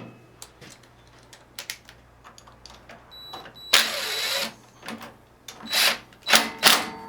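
Metal parts and tools being handled during snowblower reassembly: light clicks, a short scraping rattle a little past halfway, then a few sharp knocks near the end as the cover and bracket are fitted.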